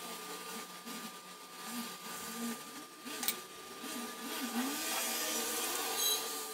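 Knife blade drawn through leather along a metal ruler: repeated scraping cuts, with a sharp click about three seconds in.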